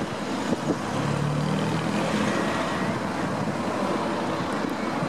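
Wind rushing across the microphone, over passing road traffic, with a vehicle's engine droning briefly about a second in.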